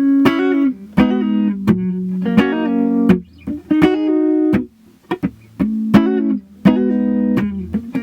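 Electric guitar played through a wah pedal: a riff of picked notes and short chords with sharp attacks and brief gaps between phrases. The pedal's boosted band shifts with the foot position, brighter with the pedal rocked forward and darker rocked back.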